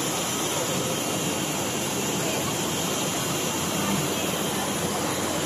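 Steady, even machine noise from a running curve edge banding machine, with a faint high whine over it and no distinct knocks or changes.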